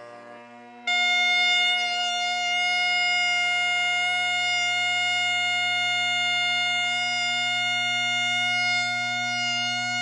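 Masak been (Himalayan bagpipe): the low drone is sounding, and about a second in the chanter comes in loud on one long, steady high note over it.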